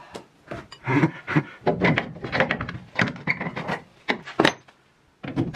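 Irregular knocks, clicks and rubbing of hard objects being handled, ending in a brief lull near the end.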